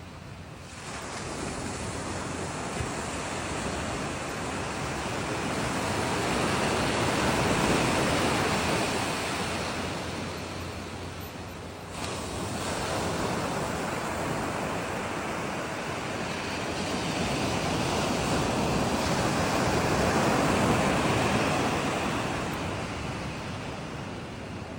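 Small waves washing on a beach, a steady rushing noise mixed with wind on the microphone. It swells twice, drops off sharply about halfway through, then comes back.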